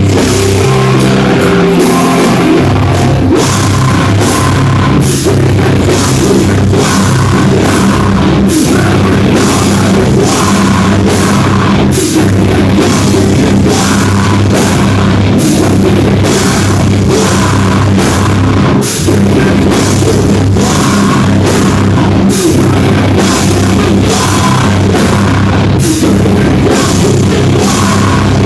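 A live metal band playing loudly: distorted guitars and bass over a drum kit, with cymbals crashing at a steady beat.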